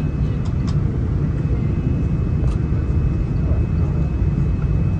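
Steady cabin noise inside a Boeing 787-9: a low, even rumble from the GEnx engines and airflow, with a thin steady high tone above it and a few faint clicks.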